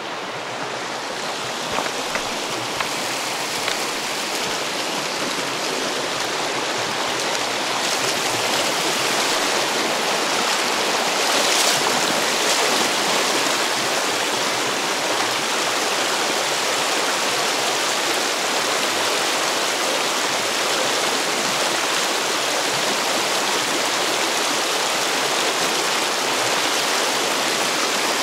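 A mountain river's water rushing steadily, a continuous even roar that grows slightly louder over the first several seconds.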